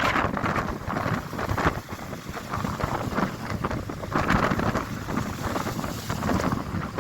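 Storm wind buffeting the microphone, a rushing noise that rises and falls in gusts, strongest at the start, about four seconds in and again near the end, over a constant low rumble.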